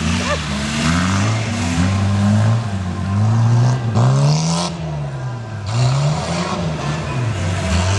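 Competition saloon car engine revving hard on a grass slalom course. The pitch rises and falls over and over as the driver accelerates and lifts between gates, with a sharp drop in revs about four seconds in.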